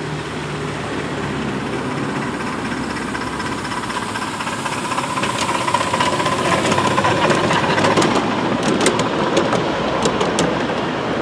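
The miniature steam locomotive Papillon running past with its train of passenger cars, its running sound growing louder as it comes close. Near the end a quick series of clicks comes as the coaches roll by over the track.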